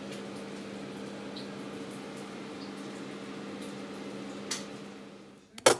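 Steady electrical hum of a running kitchen appliance, with a faint click about four and a half seconds in and a sharp, loud knock just before the end.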